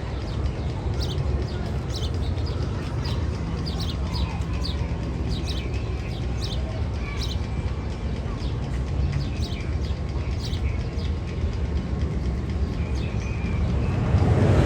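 Bird-call sound effect: many short, high chirps, several a second, over a steady low rumble, with a louder rushing noise building in near the end.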